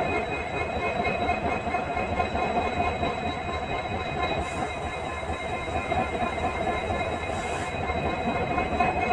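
Diesel locomotive's EMD engine running with a steady hum and a constant high whine, on a WDP4D with its 16-cylinder two-stroke EMD 710. Two short hisses cut in, about halfway through and again near the end.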